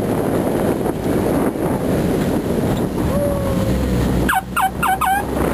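Engine and gravel-road rumble inside a moving car, then a vehicle horn tapped four times in quick succession about four seconds in, greeting an oncoming bus.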